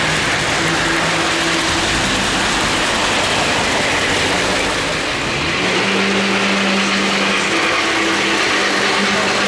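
O-gauge three-rail model train cars rolling close by: a steady metallic clatter and rumble of wheels and gearing on the track.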